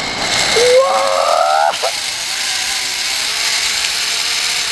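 Zip-line trolley pulleys running along a steel cable: a steady whirring hiss, with a brief rising whine about half a second in.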